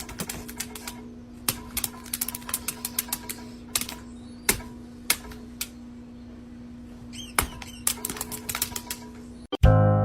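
Irregular sharp clicks and taps, sometimes in quick runs, over a steady hum. Music starts near the end.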